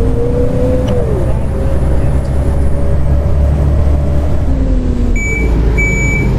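Double-decker bus engine running with a low rumble and whining drivetrain tones that shift in pitch, easing off as if slowing. About five seconds in, a high electronic beep sounds three times, typical of a bus door warning.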